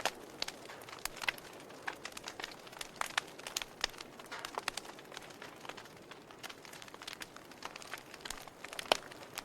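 Wood fire burning in a fireplace, crackling with irregular snaps and pops over a soft hiss. A sharper, louder pop comes near the end.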